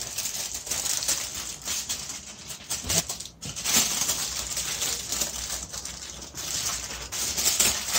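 Aluminium foil crinkling and crackling in irregular bursts as it is folded and pressed around a burger.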